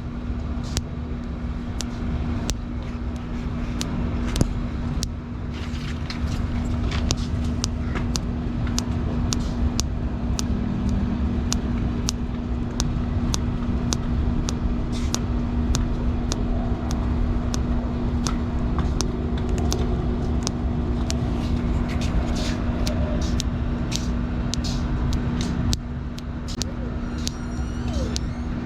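Thumb joints cracking and popping: many sharp, irregular clicks in quick succession, over a steady low rumble and hum.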